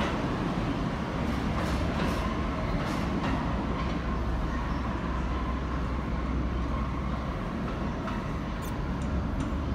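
Pullman Standard R46 subway train running on the track: a steady rumble with a faint steady whine, and a few clicks from the wheels over rail joints.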